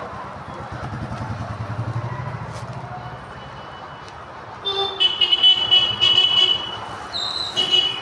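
Road traffic: a vehicle engine rumbles past, loudest about two seconds in. Then vehicle horns honk repeatedly through the second half, in short and long blasts, with a higher-pitched horn joining near the end.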